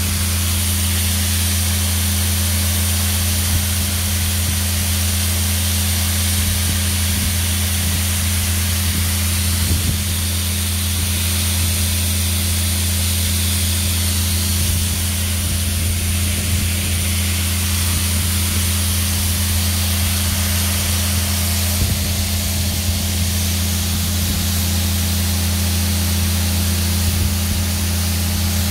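Grain auger running steadily and unloading peas into a grain truck: a constant low mechanical hum under a steady hiss of peas pouring from the spout.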